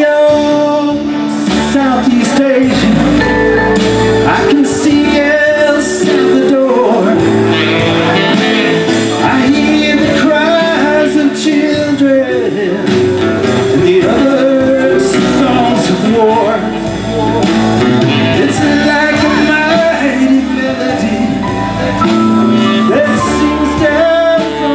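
Live band playing: saxophone over acoustic and electric guitars, keyboard and drums.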